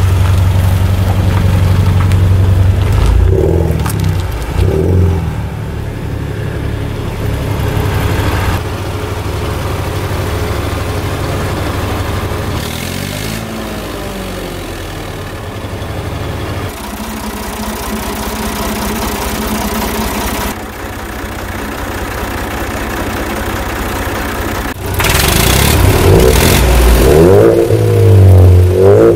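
A Ford Mustang and an old Landini tractor running side by side. Engine idling gives way to repeated revving, which is loudest in the last few seconds.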